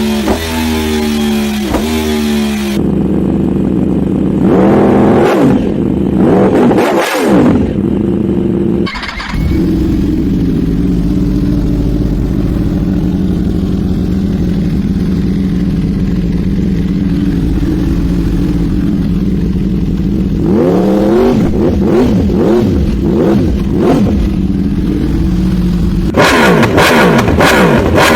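Yamaha R1 sport bike's inline-four engine idling and being blipped through its loud exhaust: quick rev rises and falls a few seconds in and again near the end, with a steady idle between.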